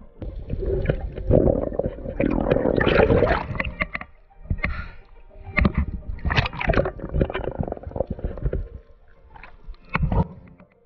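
Water sloshing, splashing and gurgling around a camera riding at the surface, the lens dipping in and out of the water. It comes in irregular surges with short lulls between.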